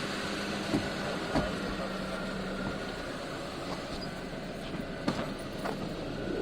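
Mercedes-Benz CLK200 Kompressor's supercharged four-cylinder engine running steadily, with a faint low hum that stops about three seconds in and a few sharp clicks.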